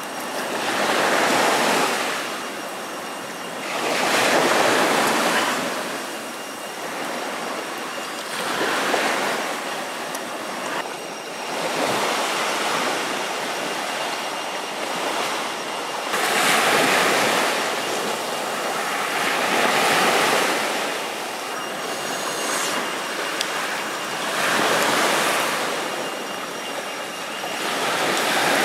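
Waves washing in, a continuous rush that swells and fades every three to four seconds.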